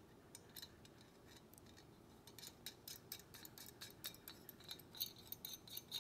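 Faint metallic ticks and clinks of small rock-guard mounting hardware, nuts, bolts and washers, handled and started by hand on the trailer tongue. A few scattered clicks at first, coming more often from about two seconds in and quick and close together near the end.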